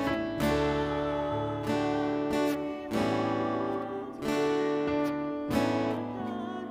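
Instrumental music: acoustic guitar strumming sustained chords, a new chord struck about every second, with no singing.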